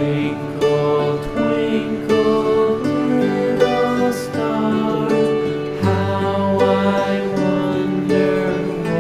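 Background music: a gentle instrumental tune with plucked guitar-like notes.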